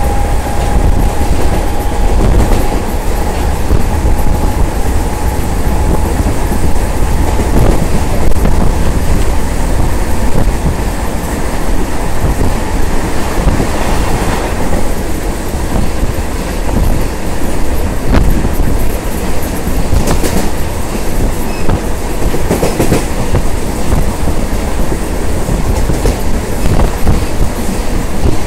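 Mumbai suburban local train running at speed, heard from on board: a steady, loud rumble and rush of wheels on rail, with a handful of sharp clacks over rail joints. A thin whine is heard for the first few seconds, then fades out.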